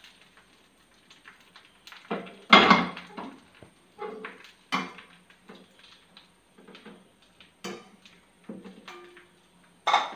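Wire spider skimmer knocking and scraping against a ceramic plate and a pan while food is dished out: several separate clinks, the loudest about two and a half seconds in.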